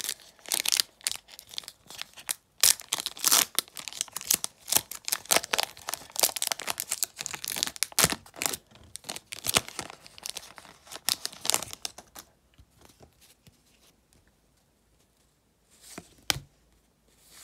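A 2021-22 O-Pee-Chee hockey card pack's crimped wrapper being torn open and crinkled by hand: dense crackling for about twelve seconds, then it goes quiet apart from a couple of sharp clicks near the end.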